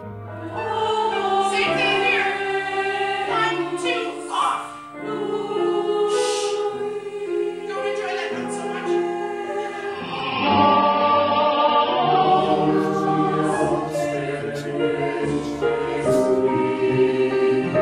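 A choir singing in several parts, holding long notes that change every second or so. The sound changes abruptly about ten seconds in, as at an edit between recordings.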